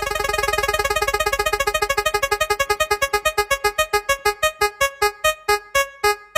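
Synthesized keyboard-like tone repeated in quick pulses that slow down steadily, from a rapid flutter to about three notes a second: an electronic music sound effect.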